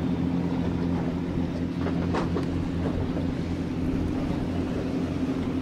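A boat's engine running with a steady low hum, over wind and sea noise.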